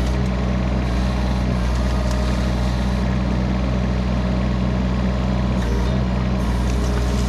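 Kubota U25 mini excavator's small three-cylinder diesel engine running steadily with a low, even drone while the boom and thumb work under hydraulic load.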